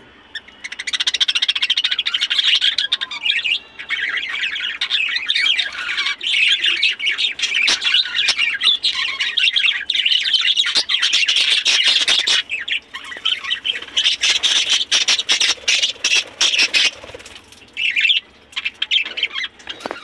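A flock of budgerigars chattering and squawking, a dense, busy warble that starts about a second in and goes on with short pauses. Several sharp clicks sound in the middle.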